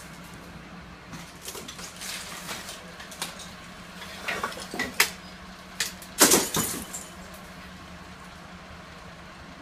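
Scattered crunches, clinks and scrapes of broken debris and glass being stepped on and moved in a fire-damaged kitchen, loudest about six seconds in, over a steady low hum.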